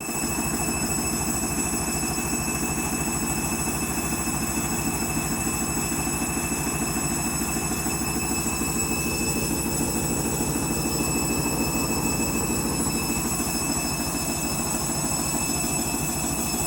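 Candy washing machine drum in an intermediate spin of the Darks/Synthetics 30 programme, running steadily at speed: a fast, even rumble with a steady high-pitched whine over it.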